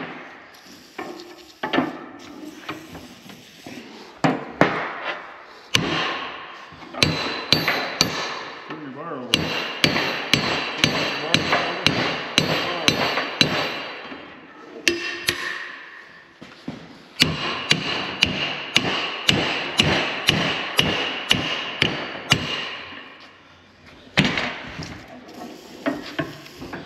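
A hammer striking steel in quick runs of about three blows a second, each blow ringing. The blows are knocking at the seized threaded adjuster of a dozer blade's strut link to free it. The runs stop briefly a couple of times.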